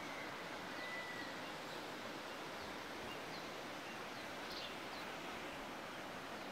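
Steady outdoor background hiss from the forest. A short faint whistle comes about a second in, and a few faint, brief high bird chirps follow in the middle of the stretch.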